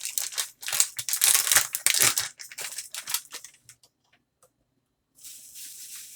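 Crinkling and crackling as a seasoning-salt container and its packaging are handled and opened. This goes on for about three seconds, falls quiet, then a steady hiss starts about five seconds in.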